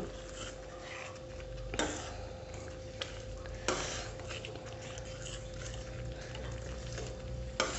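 Steel ladle stirring khichdi in a stainless steel pan, quietly, with two brief scrapes about two seconds in and near four seconds. A faint steady hum sits underneath.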